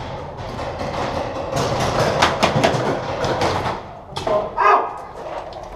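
Paintball markers firing in rapid strings of sharp cracks, thickest in the middle of the stretch. A brief shout rings out about four seconds in.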